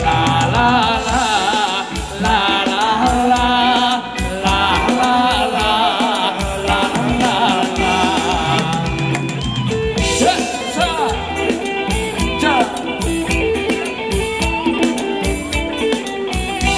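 Thai ramwong dance music played live by a band over loudspeakers: a singer's wavering melody over held accompanying notes and a steady percussion beat.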